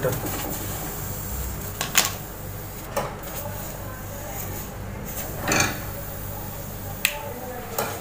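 Scattered clicks and knocks, about five, as hands handle the metal back of a refrigerator, its condenser and compressor wiring, over a low steady hum.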